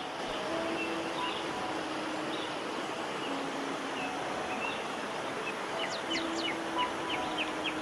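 Small birds chirping in quick high notes that come thick and fast near the end, over a steady rushing noise, with faint background music holding long notes.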